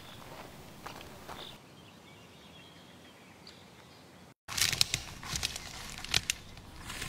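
Footsteps crunching on dry brush and twigs: a few steps, a quieter stretch, then after an abrupt break a louder, irregular run of crackles and snaps.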